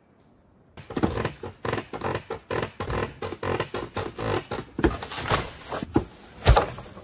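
A quick, irregular run of sharp knocks and crunches, about three or four a second, starting about a second in, with the loudest knock near the end.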